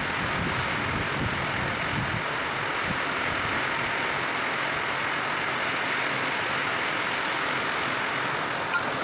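Steady rain falling on a wet street and parked cars: an even hiss.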